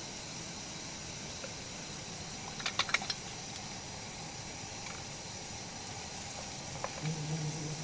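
A quick run of four or five small clicks or taps about two and a half to three seconds in, and a single click near the end, over a steady hiss.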